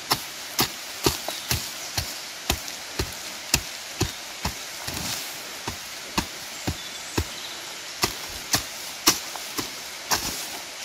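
Repeated chopping, a sharp knock about twice a second.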